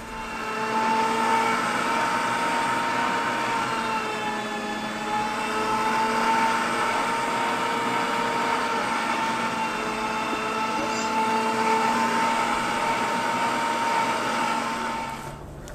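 Electric meat grinder running under load, grinding a kibbeh mixture of soaked bulgur and minced meat: a steady motor whine that starts at the beginning and stops shortly before the end.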